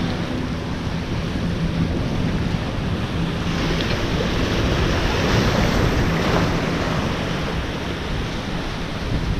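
Ocean surf washing and breaking over the boulders of a rock jetty, building to a louder surge midway and then easing off, over a faint steady low hum.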